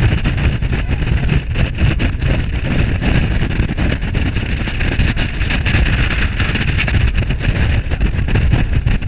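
Speedboat running fast across open sea: a steady loud rush of engine, hull spray and wind, with a heavy low rumble from wind buffeting the microphone.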